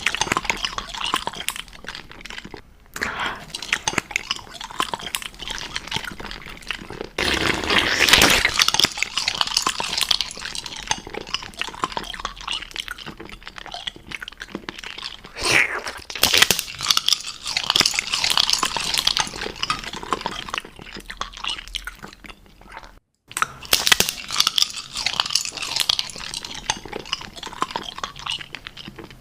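Close-miked crunching and chewing of LEGO-brick-shaped candy, a run of crackly bites and chews with louder, denser crunching spells. There is a brief total silence a little before the end.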